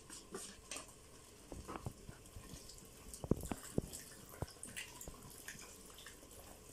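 Silicone spatula stirring thick cream into pasta in a stainless steel pot: faint wet squelching, with a few light knocks against the pot about three to four seconds in.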